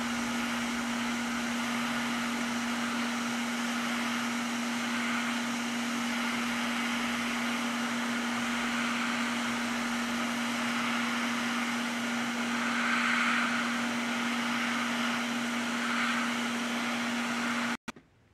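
Hot air rework gun blowing steadily, with a constant motor hum under the rush of air, cutting off abruptly near the end.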